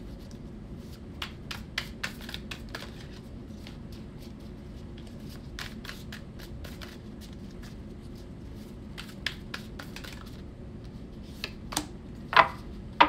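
A tarot deck being shuffled by hand: soft sliding and riffling with scattered light clicks of the cards, and two louder, sharper card clicks near the end.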